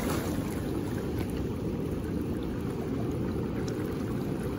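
Steady low rushing noise of the flowing river, with wind on the microphone.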